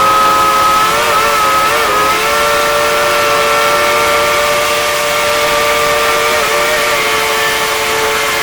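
Steam whistle of the Dollywood Express locomotive, engine 192, blowing one long, unbroken blast of several notes at once. Its pitch wavers briefly about a second in and again near the end.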